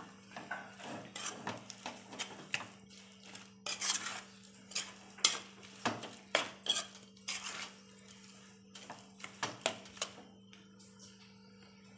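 A spoon stirring grated coconut and jaggery syrup in a metal pan, scraping and clinking irregularly against the pan over a steady low hum. The clinks thin out near the end.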